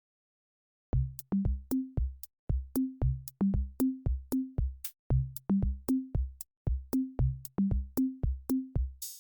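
Background music: an electronic drum-machine beat starts about a second in after a brief silence, with kick and tom hits and sharp clicks in an even rhythm of two to three hits a second. Fuller music with a bass line joins right at the end.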